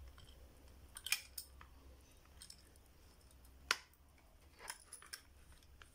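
Light plastic clicks and ticks from a small screw being tightened on a cheap clear plastic clip-on action base, to make its loose clamp grip tighter. About six scattered clicks, the sharpest a little past halfway.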